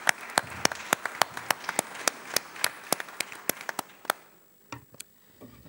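Audience applauding, with single loud claps from close by standing out at about three a second. It dies away about four seconds in, leaving a few last claps.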